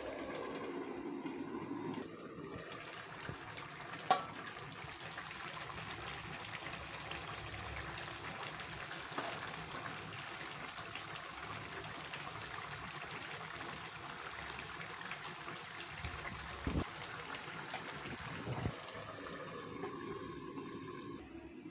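Curry of leafy greens simmering and bubbling in an aluminium pot on a gas stove: a steady liquid hiss and bubbling. A sharp metallic clank comes about four seconds in, and two dull thumps near the end.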